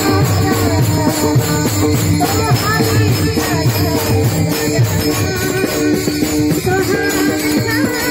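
Devotional bhajan music led by many pairs of small brass hand cymbals (taal) clashing together in a fast, even beat of about four strikes a second. A voice sings over steady held tones and a low pulsing beat.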